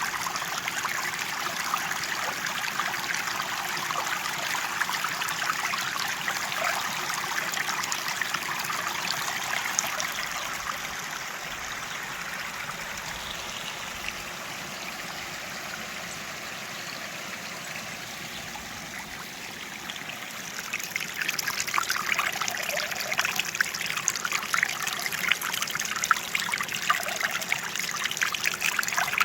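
Small waterfall cascades splashing and trickling over rocks in a steady, dense rush. The sound softens in the middle, then grows louder and more splashy about two-thirds of the way through.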